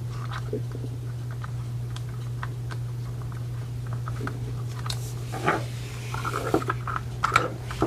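Hand tools being rummaged through and handled: scattered clicks, clinks and scrapes of small hard objects, busier and louder in the second half, over a steady low hum.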